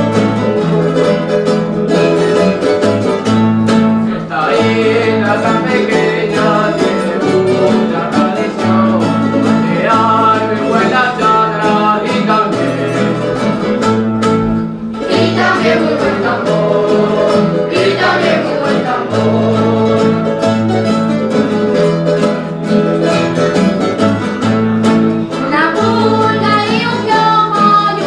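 Canarian folk group singing a song together over strummed guitars and other plucked strings.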